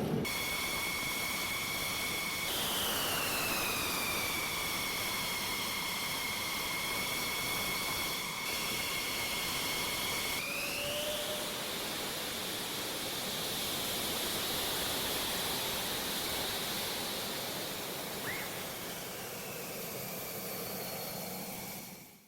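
F-16 jet engine running: a high turbine whine over a steady rush of exhaust noise. The whine drops in pitch a couple of seconds in and climbs again about ten seconds in, and the sound fades out at the very end.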